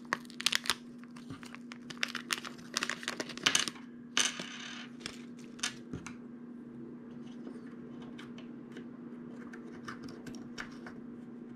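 Foil pouch crinkling and rustling as it is opened and a small lithium-ion button-cell battery is tipped out onto a wooden tabletop, with a burst of rustling about four seconds in. Light taps and clicks follow as the cell is handled with metal tweezers, over a faint steady hum.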